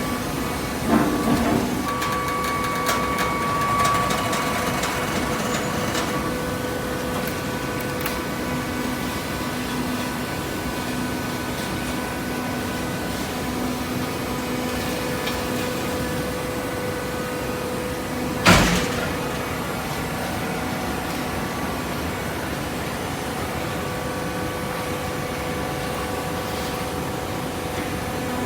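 Hydraulic baler's power unit running with a steady hum, with a few clanks in the first few seconds and one sharp, loud bang about two-thirds of the way through.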